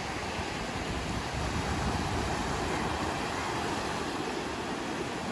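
Sea surf breaking and washing up on a sandy beach, a steady rush that swells for a couple of seconds mid-way.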